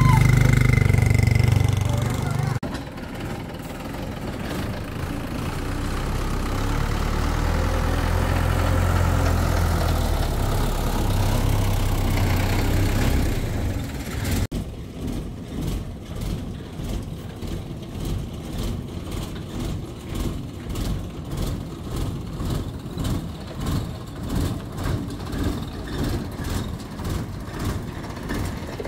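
Homemade truck's engine running, its pitch rising and falling. About halfway through the sound cuts suddenly to a regular pulsing, one or two beats a second.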